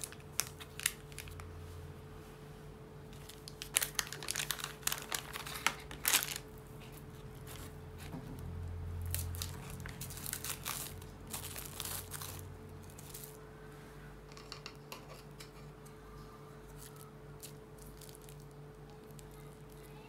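Plastic wrapping around a block of air-dry clay being torn open and crinkled by hand: clusters of crackling in the first half, thinning to occasional rustles. A faint steady hum runs underneath.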